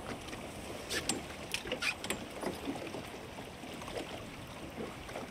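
Choppy seawater lapping and slapping against the hull of a small boat, with a few sharp slaps about one to two seconds in.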